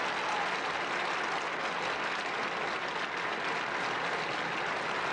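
Large concert-hall audience applauding steadily, many hands clapping at once in a dense, even patter.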